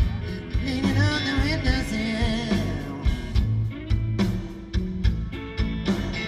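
Live electric blues-rock band playing, heard through an audience tape: guitars, pedal steel, bass and drums, with gliding, wavering notes about a second in.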